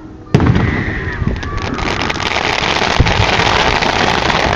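Fireworks going off: a loud bang about a third of a second in, then a dense, continuous crackle of many small bursts.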